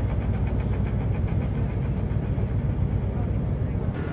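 Steady, low engine rumble, changing abruptly near the end.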